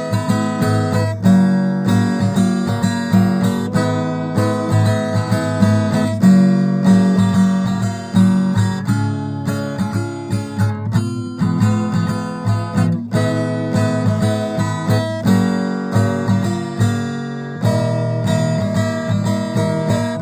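Acoustic guitar strummed in a steady rhythm, chords changing every couple of seconds with no singing.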